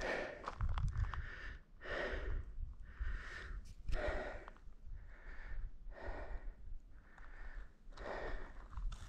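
A hiker breathing hard and rhythmically, about one breath a second, with a low rumble underneath.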